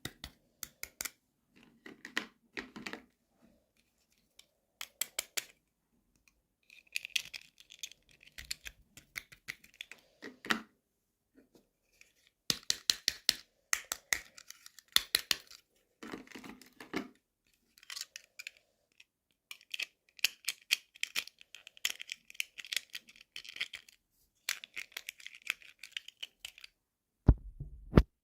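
Toy packaging being opened by hand: plastic and paper packaging crinkling and tearing, with sharp clicks and taps of small plastic pieces, in stop-start bursts separated by short pauses. A louder knock comes near the end.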